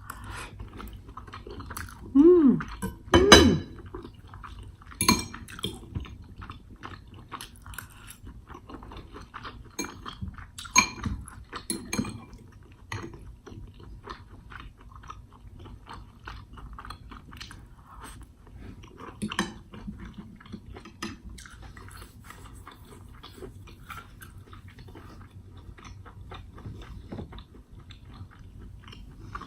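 Close-miked eating: chewing steak and corn, with cutlery clinking on a plate. It comes as many small clicks, with a few louder ones, the loudest about two to three seconds in.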